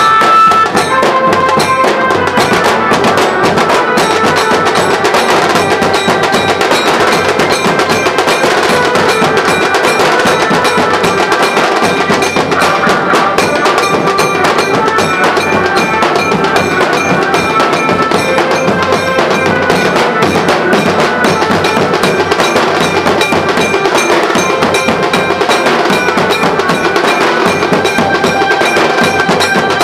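Nashik dhol band playing: large barrel dhols and a drum kit beat a loud, dense rhythm under a melody line.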